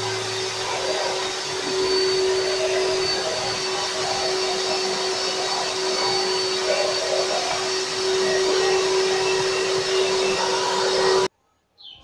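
Imarflex canister vacuum cleaner running steadily as its nozzle is pushed over a wooden floor, a rush of air with one constant mid-pitched tone. The sound cuts off suddenly near the end.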